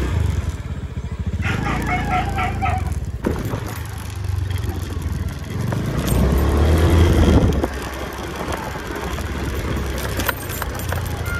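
Heavy wind and handling rumble on the microphone while the person filming runs, with a short pulsed call about two seconds in and a louder call around six to seven seconds in.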